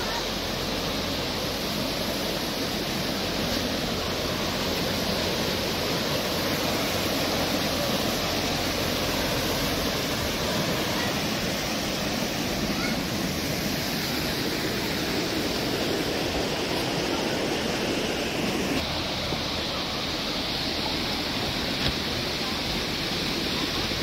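Creek water rushing over rocks in small rapids, a steady rushing noise that shifts a little in tone about nineteen seconds in.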